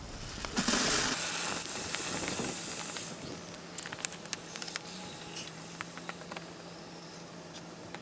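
Hot aluminium ingots quenched in a bowl of water, hissing loudly as the water boils off around them, the hiss slowly fading, with scattered sharp crackles partway through.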